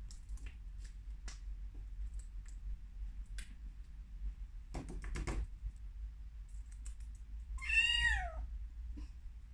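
Maine Coon kitten gives one high meow that falls in pitch, about eight seconds in, the loudest sound here. Before it come scattered light clicks and a brief rustle about halfway through, as the feather wand toy is played with.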